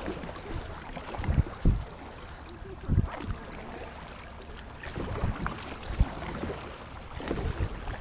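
Kayak paddle strokes splashing in the water, with a few sharp low thuds from the paddle and hull, the loudest about three seconds in and again at six seconds.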